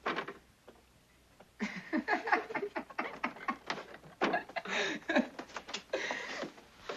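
Children's voices chattering and murmuring without clear words, starting about a second and a half in and going on to the end.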